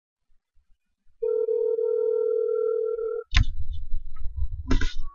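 Telephone ringback tone: one steady ring lasting about two seconds. Then a sharp click about three seconds in and low rumbling, bumping noise as the call connects.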